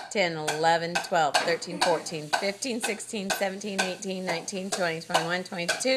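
Paddle ball rally: handheld paddles hitting a ball back and forth, giving repeated sharp clicks, with a voice going on over them.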